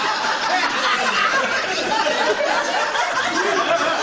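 An audience laughing together, many voices at once with some chatter mixed in, at the punchline of a joke.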